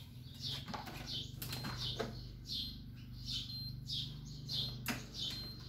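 BAAM electric treadmill running at speed 8: a steady low motor and belt hum, with a few knocks as feet land on the moving belt.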